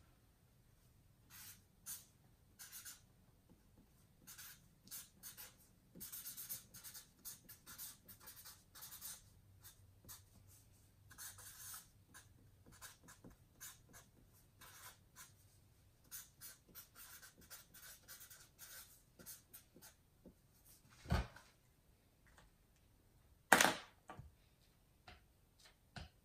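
Faint, intermittent scratching, rustling and small clicks, with two louder knocks a couple of seconds apart near the end.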